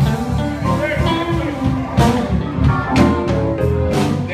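Live band playing: guitar and drums over low sustained notes, with sharp drum and cymbal hits through the second half.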